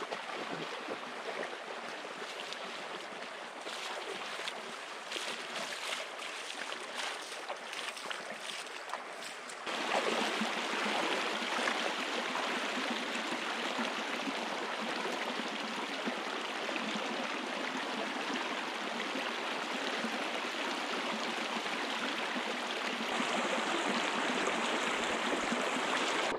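Shallow hot spring creek water running and lapping close by, with splashing as a person wades and moves through it. The water noise turns louder and fuller about ten seconds in.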